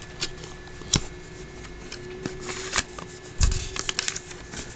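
Cardboard box being opened and handled by hand: scattered clicks and taps of the cardboard, a low thump about three and a half seconds in, then a run of crackling from the plastic bag packed inside.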